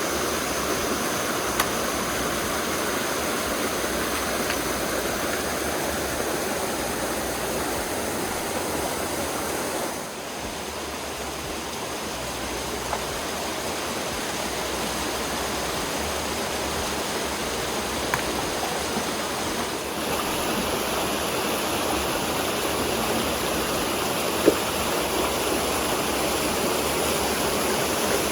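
A brook rushing over a small waterfall, a steady noise of running water. The sound dips and changes character abruptly twice, about a third and two-thirds of the way through.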